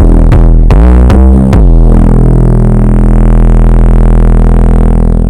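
Electronic beat built on a deep 808 bass: a few sharp drum hits with gliding bass notes in the first second and a half, then one long, very loud 808 bass note held and slowly fading.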